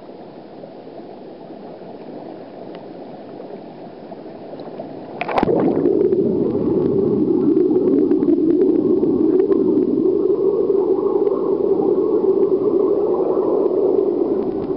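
Churning, bubbling pool water heard above the surface; about five seconds in the microphone plunges under the water and a loud, muffled underwater bubbling rush follows, cutting off near the end as it comes back out.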